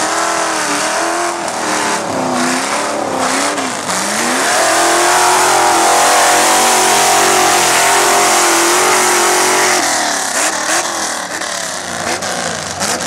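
1984 Jeep J10 mud truck's engine revving up and down as it churns through deep mud, then held at high revs for several seconds, its loudest stretch, before dropping off about ten seconds in.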